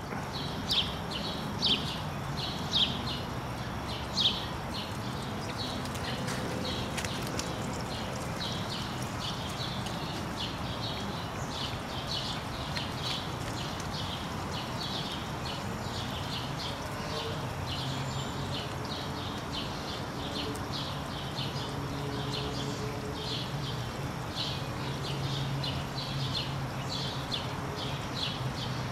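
A Welsh springer spaniel chewing and crunching on a stick, with a few louder bites in the first four seconds. A small bird chirps over and over, about once or twice a second.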